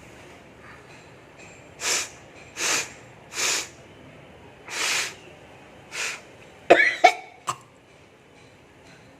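A person blowing hard out through the nose five times, short noisy blasts about a second apart, then a loud sneeze in two sharp bursts near the end.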